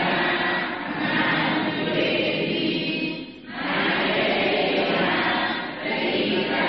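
A group of voices chanting in unison, a Buddhist devotional recitation in Burmese and Pali. It is steady, with short breaks for breath about a second in, midway and near the end.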